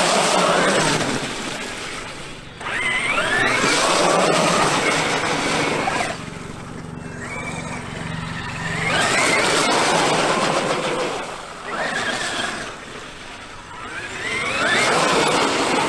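Traxxas X-Maxx RC monster truck driving in repeated runs of a few seconds: its brushless electric motor and drivetrain whine rising in pitch with each acceleration over a rushing noise, with quieter gaps between runs.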